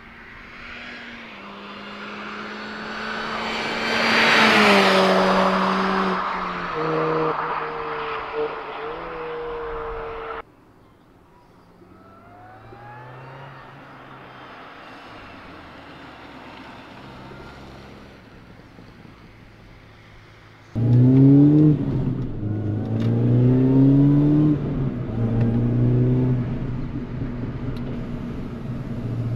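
Supercharged 1.6-litre four-cylinder of a MINI Cooper JCW GP (R53): first passing at speed, loudest about four to five seconds in and falling in pitch as it goes by; then, more faintly, accelerating through the gears. From about two-thirds in it is heard from onboard, much louder, revving up with the pitch climbing and dropping at each gear change.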